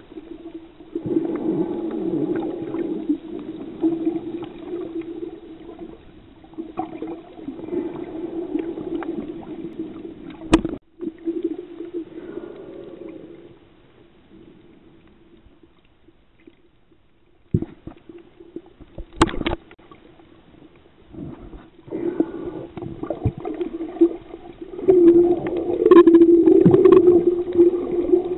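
Underwater sound: a steady hum with gurgling water noise over it, fading away for a few seconds in the middle and coming back louder near the end. A few sharp knocks stand out, two of them close together about two-thirds of the way in.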